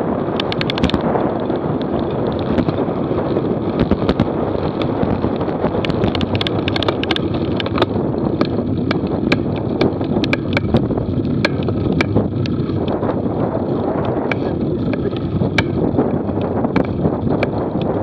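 Wind rushing over the microphone of a handlebar-mounted camera on a moving road bike, with steady tyre and road rumble and many scattered sharp clicks and rattles.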